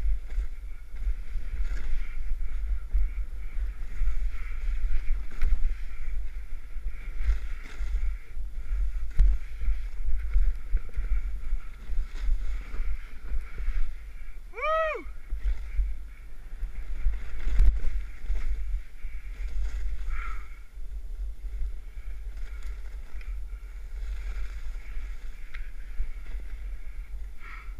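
Snowboard riding through deep powder, heard on an action camera: a steady low rumble of the board in the snow and wind buffeting the microphone. About halfway through comes a short pitched sound that rises and falls, and a few seconds later a single sharp knock.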